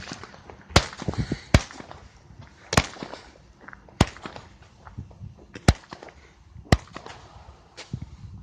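A 200-gram consumer fireworks cake firing its shots one after another, a sharp pop about every second, seven in all. The shots only shoot up and strobe, with no loud bursting reports.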